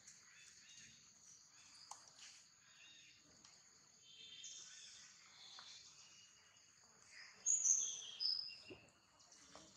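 Steady high buzzing of insects in the background. About seven and a half seconds in, a short series of louder, high-pitched chirps steps down in pitch.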